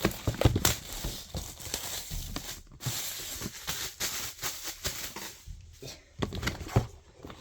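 Plastic shrink wrap being torn and crinkled off a cardboard collector's box. It makes irregular crackling and rustling with many short sharp snaps.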